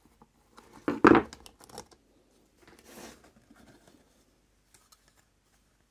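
A plastic lens being unscrewed and lifted off a car's front indicator light cluster: small clicks, scrapes and plastic rattles, with one louder clatter about a second in.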